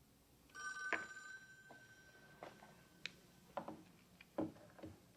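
A ringing tone, steady for about two and a half seconds, followed by a few sharp knocks.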